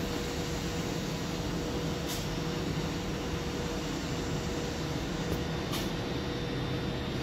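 Diesel freight locomotive running, heard as a steady low rumble with a steady hum, and a couple of faint clicks.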